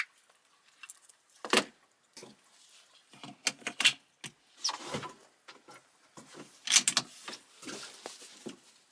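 Irregular small metallic clicks and rattles in short clusters, from handling the .22LR rifle and its cartridges between groups.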